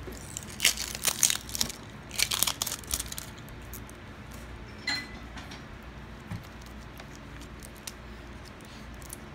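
Plastic wrapper on a Mini Brands capsule ball crinkling and tearing as it is peeled off, in two bursts of crackling over the first three seconds, followed by a single click.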